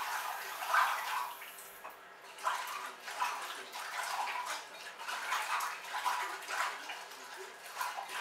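Acorns being rinsed by hand in water: irregular splashing and swishing, with a short lull about two seconds in.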